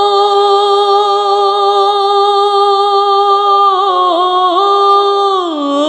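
A single voice sings one long, held note of a Bengali naat with steady vibrato and no accompaniment. It wavers twice about four seconds in, then slides down in pitch near the end.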